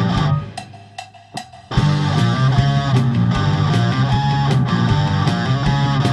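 Rock song, instrumental: guitars and drums play, drop out to a few sparse hits for about a second near the start, then the full band comes back in.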